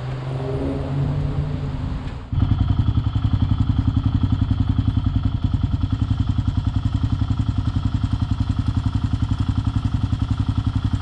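Kawasaki KLR650's single-cylinder four-stroke engine idling with a fast, even chugging beat that holds steady. It starts abruptly about two seconds in, after a smoother engine sound with a rising tone.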